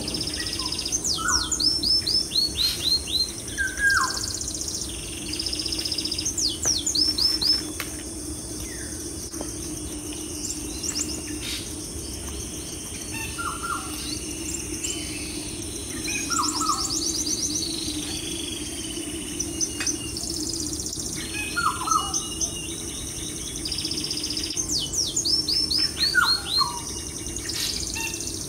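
Birds chirping: every few seconds a quick run of high, downward-sliding chirps, with shorter, lower calls in between, over a steady low hum.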